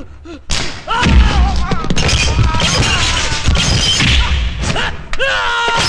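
Movie fight sound effects: heavy blows and crashes with men grunting and yelling, and one long pained cry near the end.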